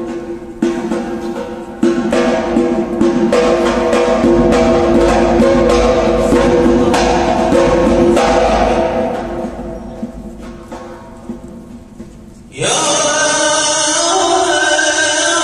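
A zurkhaneh morshed chanting into a microphone over regular strokes of a zarb goblet drum. Around ten seconds in the chant and drumming fade, then a louder stretch of chanting starts suddenly near the end.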